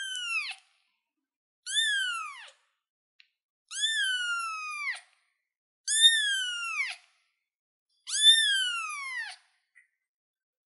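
Young ginger kitten meowing over and over: high, drawn-out cries about one every two seconds, each rising briefly and then sliding down in pitch.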